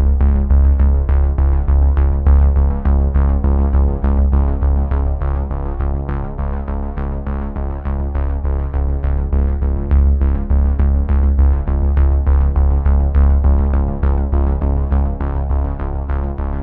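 Electronic background music with synthesizer tones, deep bass and a steady drum-machine beat.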